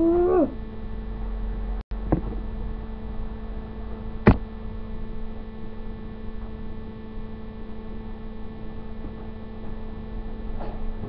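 A steady electrical hum with a higher whine over it, broken by a short sharp click about two seconds in and a louder click about four seconds in.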